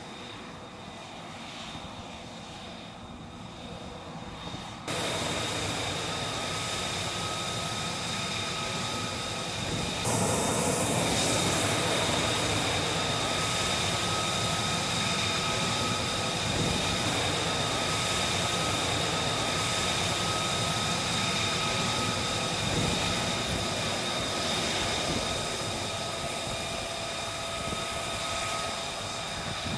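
F-35B's Pratt & Whitney F135 jet engine running on the ground: a steady rushing noise with a high steady whine through it. It gets louder in two sudden steps, about five and about ten seconds in.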